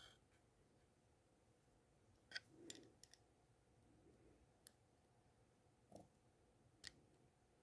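Near silence broken by about six faint, scattered clicks of small hand tools against an eyeglass frame while a screw-on nose pad is worked on.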